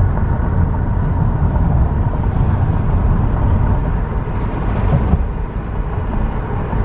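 Steady road and wind rumble of a moving car, heard from inside the cabin, loudest in the low end.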